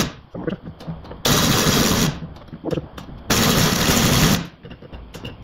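Impact wrench hammering in two bursts of about a second each, unwinding a rusty front suspension ball joint while the joint is held with a bar from below.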